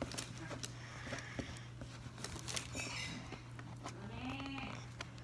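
Scattered light clicks and taps of a plastic Easter surprise egg being handled and twisted as someone tries to pull it open, over a steady low hum. A short voice-like murmur comes a little after four seconds.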